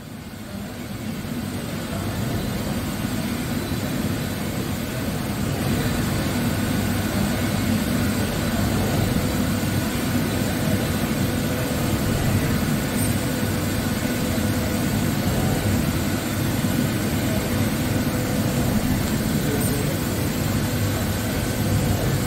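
DMG MORI DMC 635V ecoline vertical machining centre running, its spindle turning while coolant sprays onto the workpiece: a steady mechanical noise with a faint steady whine. It grows louder over the first few seconds, then holds.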